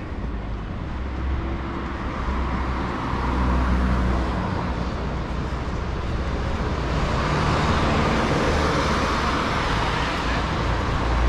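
City street traffic: cars driving past with a steady engine hum and tyre noise, swelling twice as vehicles go by close.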